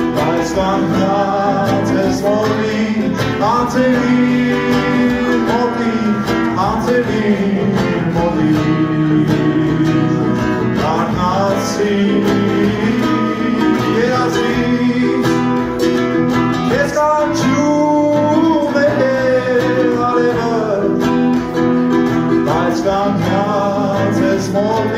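A man singing with long, sliding notes while strumming a nylon-string classical guitar, picked up live through a vocal microphone.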